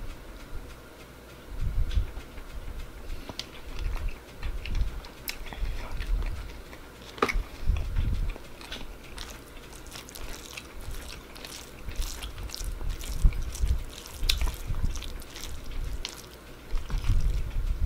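Close-up chewing and wet mouth sounds of a person eating, with soft low thuds and many sharp, wet smacking clicks, busiest in the second half.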